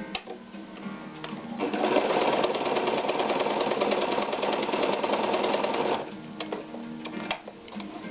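Ideal 601 sewing machine running and stitching at speed for about four seconds: a fast, even run of needle strokes that starts about a second and a half in and stops abruptly near the six-second mark.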